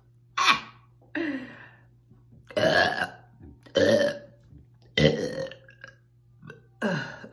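A person burping again and again after drinking Diet Coke: about six loud burps in a row, some short and some drawn out.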